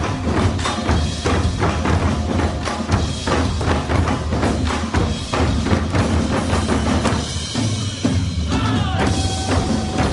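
Live percussion music: rapid, dense drum strikes over a backing track with a steady bass line, with a short gliding tone near the end.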